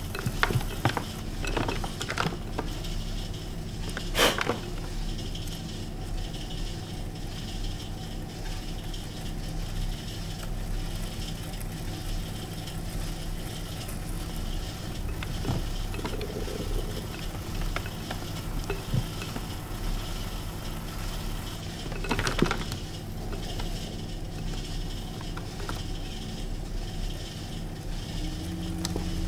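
Metal trimming tool scraping the clay foot of an upturned bowl turning on a potter's wheel, with clay shavings peeling off and dropping, over the steady hum of the wheel's motor. A few sharper clicks stand out, the loudest about four seconds in and another about twenty-two seconds in, and the motor's hum shifts in tone near the end.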